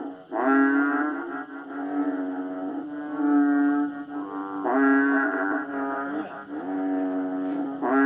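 Music: a steady low droning tone with shifting overtones, breaking off and starting again with a rising swoop every few seconds.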